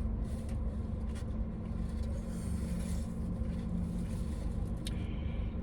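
Steady low rumble with a constant hum, like a car engine idling heard from inside the cabin, with a few faint short clicks.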